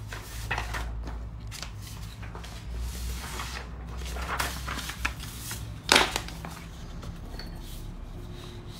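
Paper sheets rustling and being shifted around on a desk, with soft handling knocks and one sharper knock about six seconds in.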